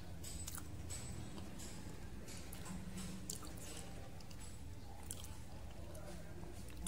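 A person chewing soft, creamy durian flesh, with wet smacking and squishing mouth clicks, over a steady low hum.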